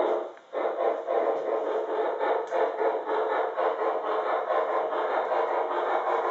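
Sound-equipped model of the Norfolk and Western 2-6-6-4 steam locomotive chuffing: one separate chuff, then from about half a second in a rapid, steady run of chuffs.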